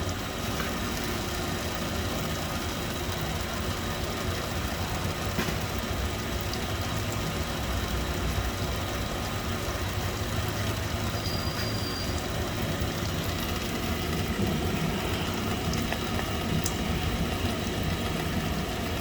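Metalworking machine tool running steadily with a low motor hum while it takes a light finishing cut of a couple of tenths of a thousandth to give the part clearance.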